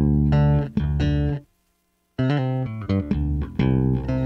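Ibanez miKro GSRM20 short-scale electric bass playing a line of quick plucked notes on its bridge J pickup alone, with the tone at full treble. The notes break off for a moment about a second and a half in, then resume.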